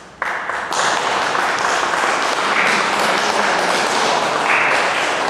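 Audience applauding, starting abruptly and filling out within the first second.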